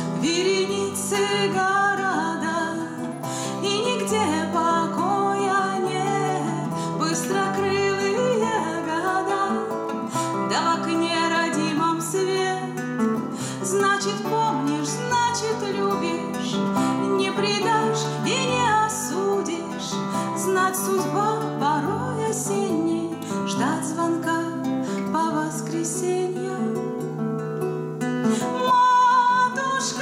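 Acoustic guitar strummed as accompaniment to a woman singing a slow song.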